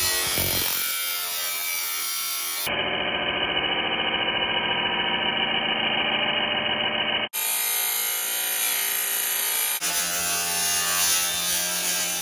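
Cordless angle grinder running with its disc grinding into the sheet steel of a microwave's cabinet, widening a mounting slot, a steady loud whine. It breaks off sharply and resumes about seven and ten seconds in.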